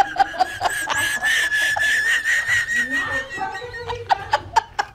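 Comedy sound effects and music laid over the picture: the tail of a snickering laugh, then a long, steady whistle-like tone, then quick clicking beats.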